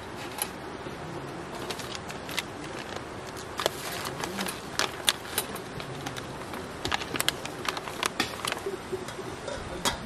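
Handling sounds of a pour-over coffee setup: a metal wire dripper clinking on a metal mug, a paper filter rustling as it is fitted, and a coffee packet crinkling as ground coffee is poured in. Scattered sharp clicks and taps, busiest in the second half.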